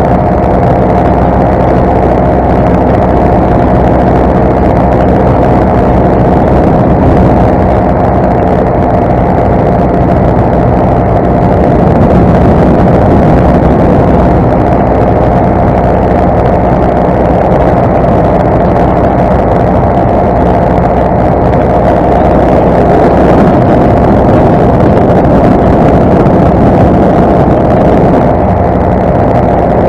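Parajet Zenith paramotor's two-stroke engine and propeller running steadily in flight, a loud constant drone that rises slightly about twelve seconds in.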